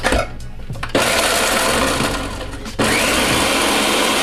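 Countertop blender grinding chips (Cheetos and Doritos) into crumbs: it switches on about a second in, eases off briefly, then kicks on again just before the three-second mark with a rising whine as the motor spins up, and keeps running.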